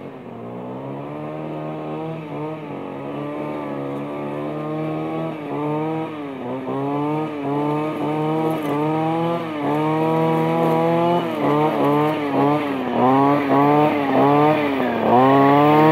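Echo SRM-250si two-stroke string trimmer revving up and down as it cuts grass. The pitch climbs over the first couple of seconds, then rises and falls in repeated throttle swings that come quicker in the second half. It grows louder as the trimmer comes closer.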